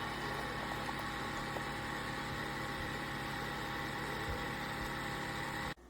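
Steady machine hum with several steady tones, cutting off suddenly near the end.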